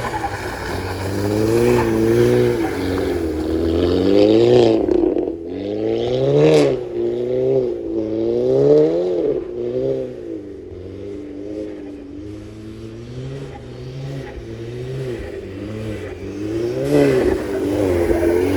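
Straight-piped Audi S3 8P's turbocharged 2.0-litre four-cylinder engine revving up and down again and again, with one sharp exhaust crack about six and a half seconds in. It settles lower and quieter for a few seconds before the revs climb again near the end.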